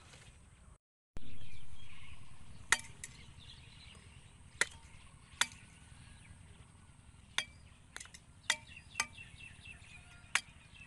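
Hooked iron blade chopping and shaving a thin wooden stick: about ten sharp, irregular cuts, some with a short metallic ring.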